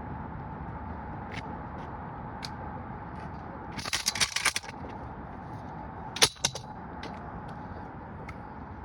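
Two short bursts of rapid clicking and rattling, the first about four seconds in and the second, briefer and sharper, about six seconds in, with a few single ticks around them, over a steady low rumble and a faint steady hum.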